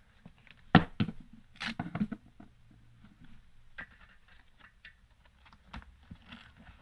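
Handling noises from a small camera and Velcro straps being fastened onto a motorcycle helmet. There are a few sharp knocks, the loudest just under a second in, then scattered light ticks and rustles.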